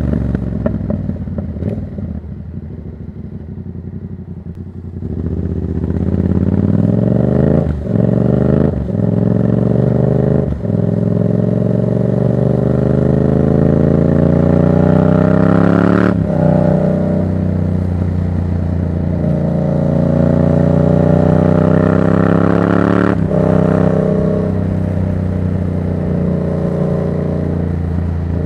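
Yamaha MT-07's parallel-twin engine through a Black Widow exhaust with no dB killer, accelerating hard. After a few quieter seconds at low revs, the pitch climbs through quick gear changes, then revs up in a long rise. Two later gear changes drop the pitch, one about halfway through and one near the end.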